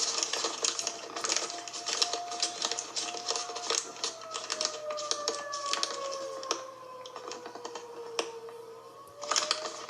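Tornado warning siren: a steady tone gives way to a slow downward glide in pitch, which starts to rise again near the end. Many sharp clicks sound throughout, louder than the siren.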